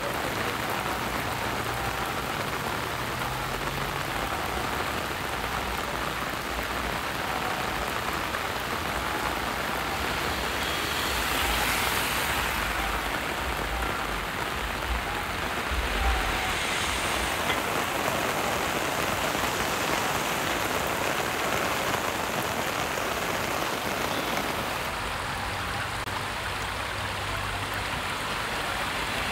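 Heavy rain pouring steadily onto a paved road, a continuous hiss that swells a little twice around the middle.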